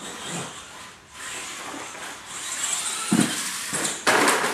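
R/C monster trucks driving, their electric motors whining and tyres scrabbling on the shop floor. Two loud knocks near the end, about three and four seconds in, as the trucks hit the course.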